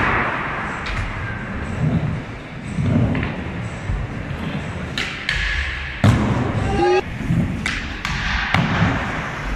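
Skateboard wheels rolling on concrete, with sharp board clacks and thuds from tricks, the loudest about six seconds in. Near the end a board slides along a flat metal rail and drops off it with a clack.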